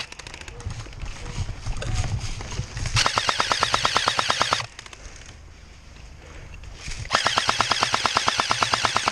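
Airsoft gun firing on full auto in two long bursts of about ten shots a second. The first comes about three seconds in and lasts a second and a half; the second starts about seven seconds in and lasts about two seconds.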